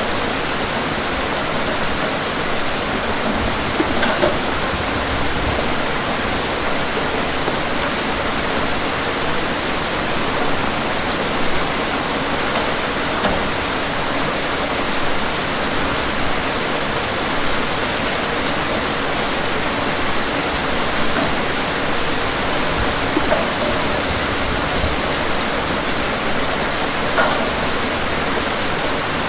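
Steady rain falling: an even, continuous hiss, with a few louder drops or splashes standing out now and then.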